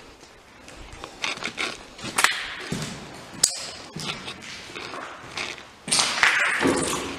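Irregular knocks, taps and scuffs, like footsteps and handling noise while moving over a debris-strewn floor, with a louder scrape about six seconds in. Background music starts near the end.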